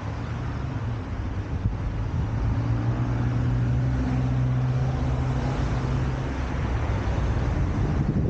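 A motor vehicle's engine humming steadily over road noise.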